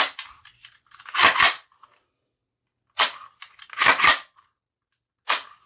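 Henry Homesteader 9mm carbine being dry-fired and re-cocked: sharp clicks of the trigger breaking and the clatter of the bolt cycled by the charging handle, repeated three times about every two and a half seconds.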